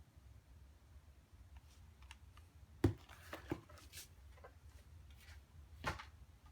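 A scattering of sharp clicks and light knocks, the loudest about three seconds in and another just before the end, over a faint low hum.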